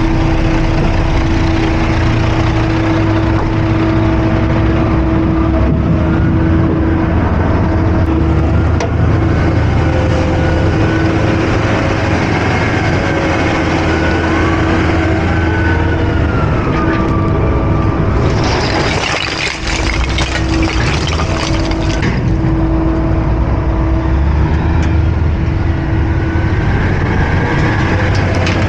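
Heavy diesel engines running steadily, a roll-off truck idling with a Komatsu WA600 wheel loader working close by. A faint wavering whine sounds in the middle, and a loud burst of hiss lasts about four seconds, about two-thirds of the way in.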